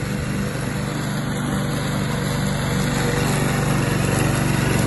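Walk-behind lawn mower's small engine running steadily while the mower is pushed across long grass, getting a little louder about three seconds in.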